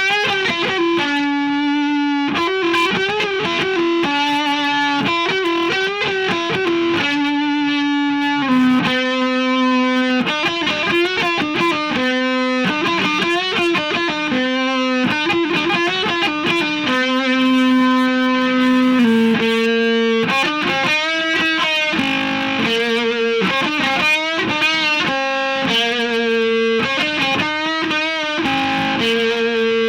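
Electric guitar with distortion playing a single-note lead line: a string of held notes, many with vibrato, shifting in pitch every half second or so.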